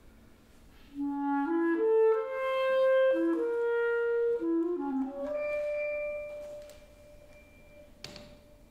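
Solo clarinet playing a short phrase of quick stepping notes, rising and falling, then holding one long higher note that fades away. A faint click comes near the end.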